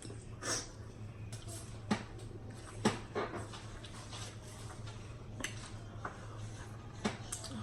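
Scattered sharp clicks and cracks from people eating a seafood boil by hand, shells and utensils, about five in all, over a steady low hum.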